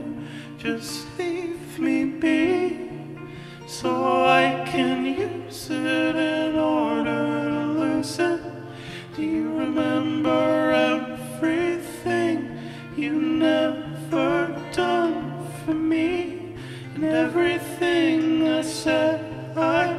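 Live acoustic song: male voice singing a slow, drawn-out melody over strummed acoustic guitar, with held lower notes underneath.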